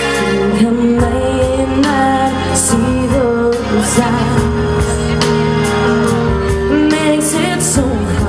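A woman singing a pop song live into a handheld microphone over an instrumental backing track with a steady beat. Her voice comes in about a second in, after the instrumental intro.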